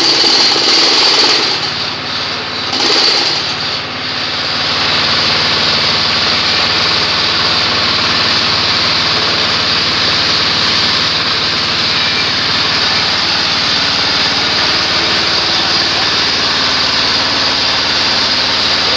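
Small single-cylinder diesel engine running steadily while it belt-drives a paving-block press. The noise dips briefly twice in the first few seconds, then holds even.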